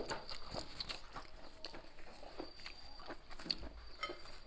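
Close-miked chewing: a person biting and chewing a mouthful of food, with irregular soft wet clicks and crunches.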